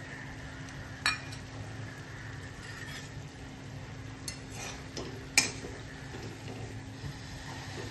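A metal spatula knocking against a steel kadhai a few times, the loudest knock about five and a half seconds in, as it begins stirring a thick cabbage and prawn curry. A faint steady hum lies underneath.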